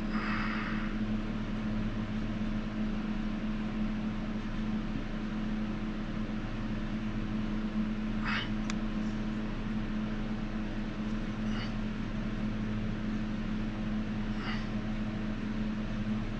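Steady low electrical or fan-like hum throughout, with a few faint short scrapes of a sculpting tool against clay: one about a second in, others around the middle and three quarters of the way through.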